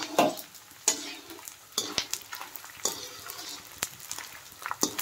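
Pieces of gond (edible gum) sizzling as they fry and puff in hot ghee in a metal kadai. A wire-mesh skimmer stirs them, clinking and scraping against the pan about once a second.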